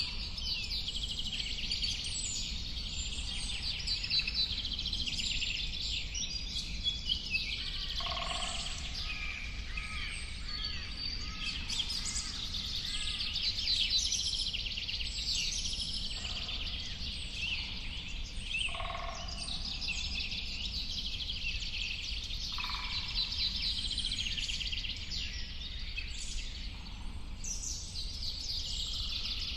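A chorus of many birds chirping and singing, with dense overlapping high calls and trills and a few lower calls about every few seconds, over a steady low background noise.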